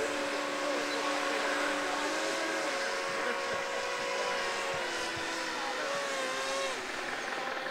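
Motors of radio-controlled model boats whining at several steady pitches that glide up and down as the throttle changes. Near the end it gives way to a rougher, rapidly pulsing buzz.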